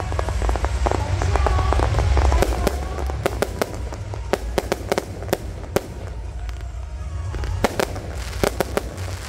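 Fireworks going off overhead: a dense run of crackling and popping that peaks about two seconds in, then single sharp bangs every half second or so.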